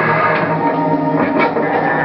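Background music with a guitar-led rock sound.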